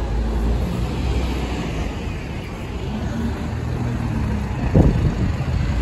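London double-decker bus running as it turns and pulls away, with a deep low hum loudest in the first couple of seconds, over street traffic. A short, louder sound with a rising pitch comes about five seconds in.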